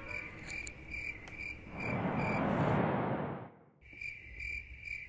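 Cricket chirping, a high repeating chirp about three times a second. About two seconds in, a rushing whoosh swells and cuts off abruptly, and after a moment's silence the chirping goes on.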